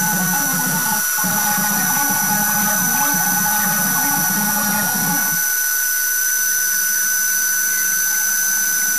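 A 1 hp electric drill driving a homemade wood lathe, running with a steady high whine. A rough, wavering low rumble from the cutter working the spinning ash log stops about five seconds in, while the motor keeps running.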